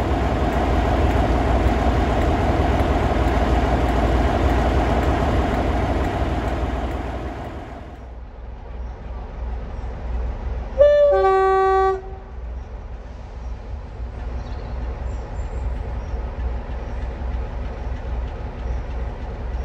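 Class 47 diesel locomotive 47449 running, its engine loud for the first seven seconds and then fading to a steady rumble. About eleven seconds in it sounds its two-tone horn: a brief higher note, then a lower note held for about a second.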